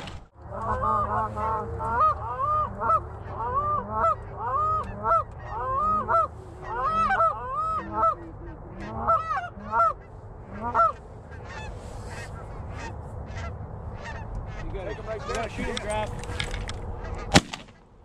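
Geese honking, many repeated calls overlapping for the first ten seconds or so, then thinning out. A single sharp shotgun shot near the end.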